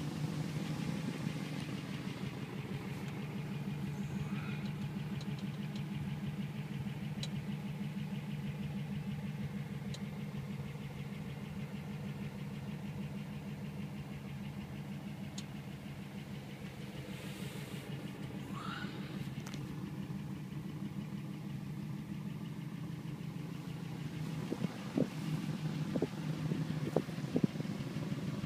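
A 1955 Ford Crown Victoria engine idling steadily with an even low hum. A few sharp clicks come near the end.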